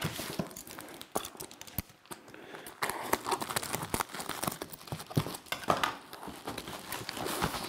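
Plastic film crinkling and cardboard scraping as a taped, film-wrapped cardboard box is pulled open by hand, in irregular rustles and short clicks that ease off about two seconds in and pick up again after three.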